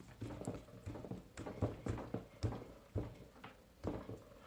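Irregular plastic clicks and knocks, about a dozen in a few seconds, from handling a semi-mechanical keyboard and its keycaps.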